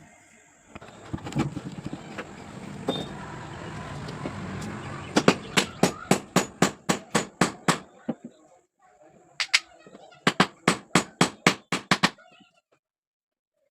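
Two runs of sharp knocks, about four a second, one after the other. Before them comes a few seconds of rough handling noise. The knocks sound like tapping on a part during a cutter machine repair.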